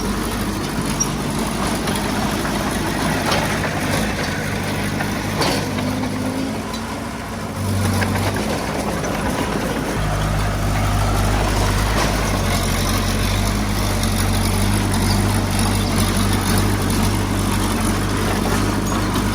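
Diesel engine of heavy earthmoving machinery running. Its low note thins out about four seconds in and comes back fuller and steady about ten seconds in.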